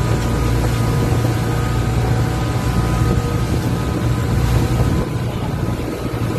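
Engine of an outrigger passenger boat running steadily while under way, a low drone with a few steady tones, mixed with the rush of wind and water.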